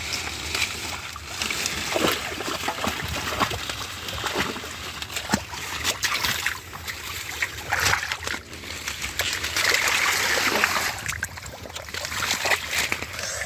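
Shallow muddy water splashing and sloshing in irregular bursts as hands and legs work through it and a mat of water hyacinth, hand-fishing for catfish.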